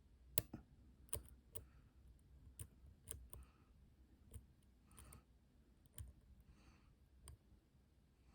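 Faint, irregular metallic clicks of a dimple pick working the pins of an MCM AS6 dimple lock under very light tension, about ten scattered clicks.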